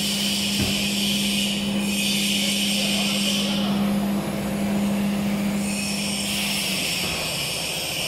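REU1326ATC CNC router with press-down rolls running with no material on the table: a steady hum with a high hiss over it that fades and comes back, and the hum stops about seven seconds in. A single short knock comes just after the start.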